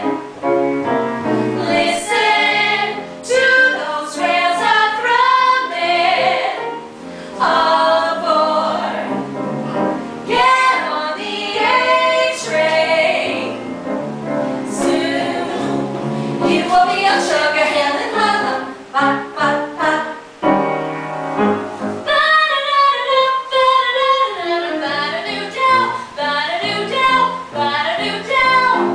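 Three women singing a song together.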